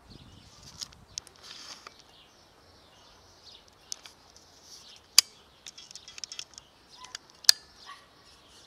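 Birds chirping in the background, with scattered short, sharp clicks; two much louder clicks come about five and about seven and a half seconds in.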